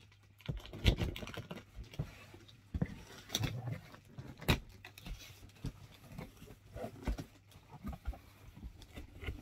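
Cardboard parcel being opened and its packaging handled: irregular rustling, scraping and small knocks, with a louder knock about a second in and a sharp click near the middle.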